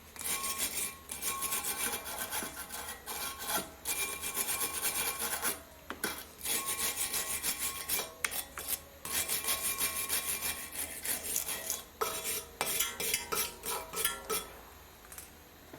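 Hand wire brush scrubbing the bare metal of a brake caliper bracket in rapid back-and-forth strokes, scraping dirt off where the brake pads sit and slide. There is a short pause about six seconds in, and the scrubbing stops shortly before the end.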